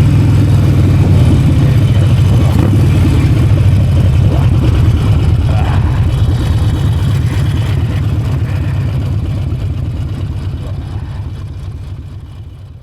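Harley-Davidson Forty-Eight's air-cooled V-twin engine running steadily, fading out over the last few seconds.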